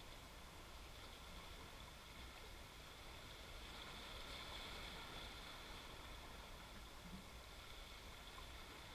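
Near silence: a faint, steady hiss with a low rumble, the background of a calm seashore.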